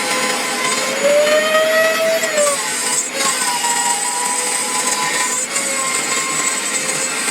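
CNC router cutting acrylic: the spindle runs steadily under a hiss of cutting noise, with a motor whine that glides up and down in pitch and shifts every second or two as the machine changes speed along the cut.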